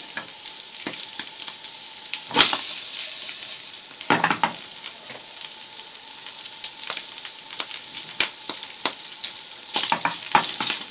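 Shredded chicken, button mushrooms and sliced green olives sizzling steadily as they sauté in margarine in a frying pan. A wooden spatula scrapes and stirs through them about two seconds in, again about four seconds in, and several times near the end.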